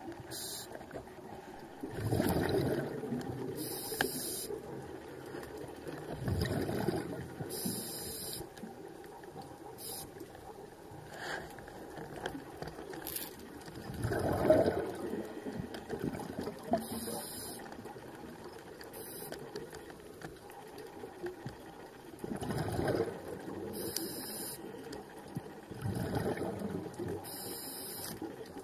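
Scuba regulator breathing underwater: short hissing inhales through the regulator alternating with louder rushes of exhaled bubbles, several breaths in a row.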